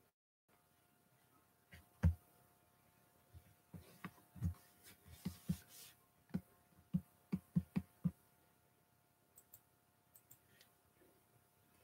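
A series of short, dull knocks and taps, the loudest about two seconds in, then about a dozen in quick succession, followed by a few faint clicks near the end.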